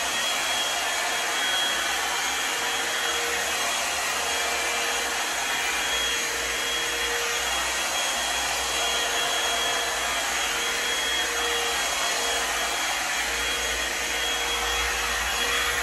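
Britânia hot air brush (a brush-style hair dryer) running steadily, blowing air as it is pulled through wet hair, with a faint steady motor whine under the rush of air.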